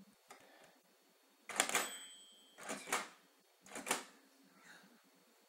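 Toy cash register being worked: three clattering clunks about a second apart, the first and loudest with a short ring.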